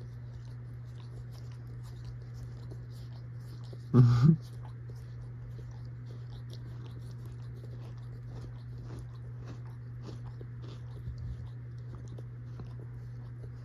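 Faint, quick wet clicks of a pet opossum licking and chewing at its paw, over a steady low hum. About four seconds in comes one brief, loud voice sound.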